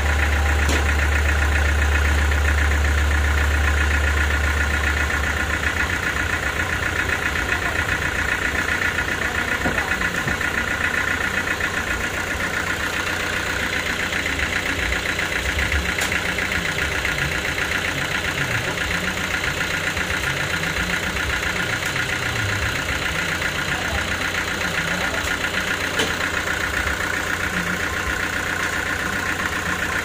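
Homemade sawmill's engine running steadily at idle, with a deep hum that is strong for the first few seconds and then weakens. A few sharp knocks sound over it.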